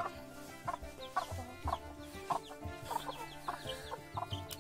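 Domestic hens clucking, with short calls coming about every half second.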